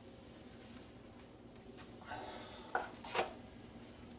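Drywall taping knife spreading joint compound on a wall: a short scrape about two seconds in, then a click and a sharper knock of the knife about a second later.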